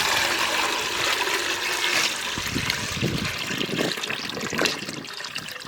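Liquid pouring and splashing steadily, with irregular low gurgles in the second half.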